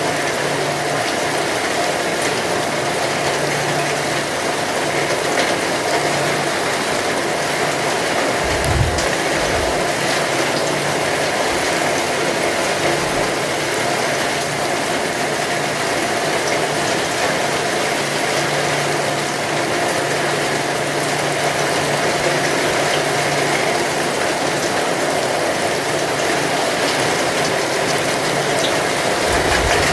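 Heavy rain falling steadily, a dense, even patter, with two brief low thumps about nine seconds in.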